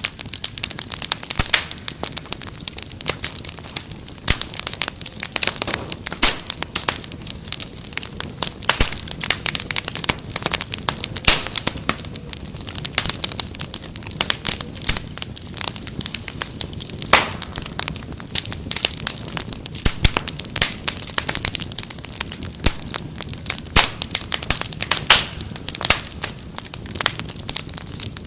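Wood fire crackling in a fireplace: a dense, irregular run of sharp pops and snaps over a soft low hiss of burning.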